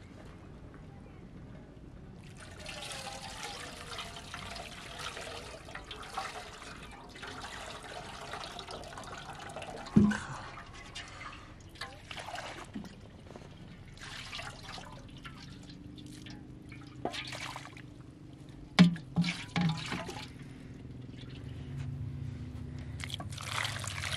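Water poured from a plastic jerrycan, splashing and trickling over a plucked chicken being washed and into a steel bowl, in uneven streams starting about two seconds in. A few sharp knocks stand out, one about ten seconds in and a quick cluster a little before twenty seconds.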